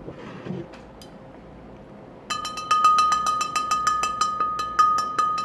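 A ringing, bell-like tone struck rapidly and over and over, about four strikes a second, starting about two seconds in and the loudest thing here. A brief rustle of handling comes just before.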